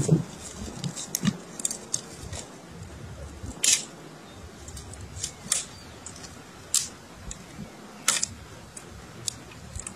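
Dry sticks and twigs clicking and cracking against each other as they are gathered and laid onto a bundle of firewood: a scatter of short, sharp clicks, roughly one a second, some louder than others.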